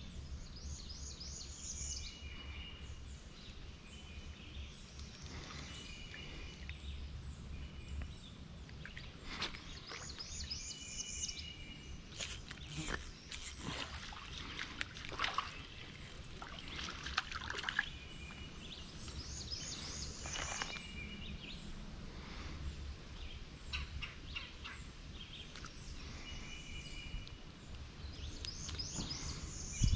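Faint wooded-swamp ambience in which a bird repeats a short song every few seconds. A few brief rustling or scraping noises come in the middle.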